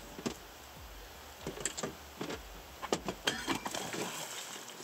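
A hooked coho salmon thrashing at the surface: a quick run of sharp splashes and knocks from about a second and a half in.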